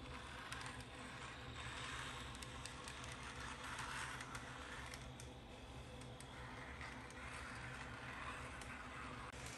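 Small model tram running on its track, a faint steady whir of its motor and wheels with light rail clicks, growing louder around two and four seconds in as it passes nearer.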